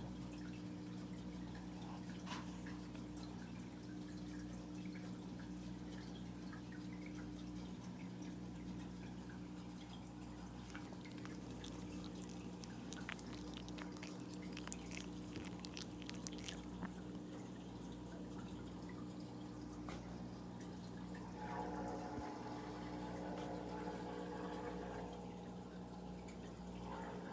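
A low, steady electrical hum, with scattered faint clicks and ticks.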